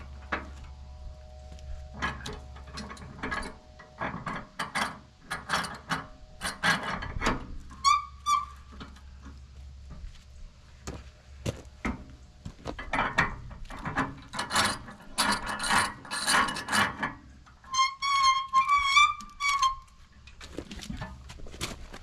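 Steel clicks, clanks and ratcheting from a Wood-Mizer LX25 sawmill's log bed as a log is set and clamped by hand. Two short, high, wavering tones stand out, one about 8 seconds in and a longer one near 18 seconds.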